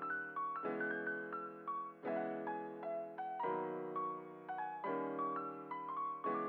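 Background piano music: a gentle melody of single notes over sustained chords that change about every second and a half.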